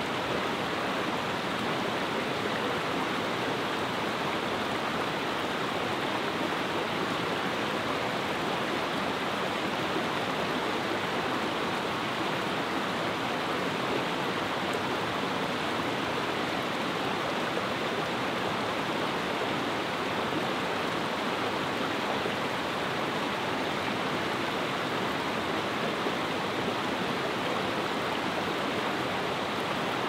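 Steady rushing of a mountain river's flowing water, an even noise with no breaks.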